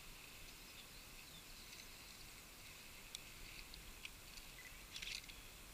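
Near silence: faint outdoor ambience, a quiet high hiss with a few small clicks and a short rustle about five seconds in.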